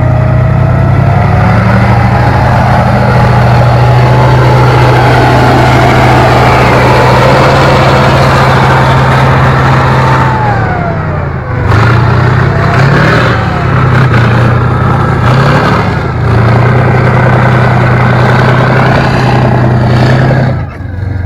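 A vehicle engine running loud and close, with a higher whine that rises over the first couple of seconds. The engine note drops and breaks up about ten seconds in, picks up again, and dips once more near the end.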